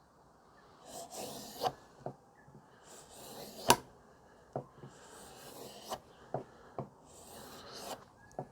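Kitchen knife blade drawn edge-trailing along a leather strop loaded with buffing compound: about four soft rubbing strokes, with light clicks between them as the blade is lifted and set down, the sharpest about a third of the way in.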